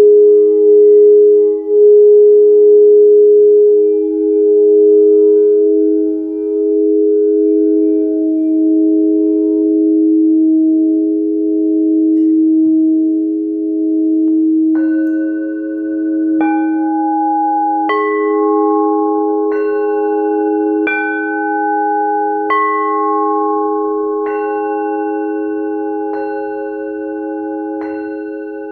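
Frosted quartz crystal singing bowls. For the first half two low notes ring on, held with a slow waver. From about halfway the bowls are struck in turn, about every second and a half, each strike adding a higher ringing note over the drone.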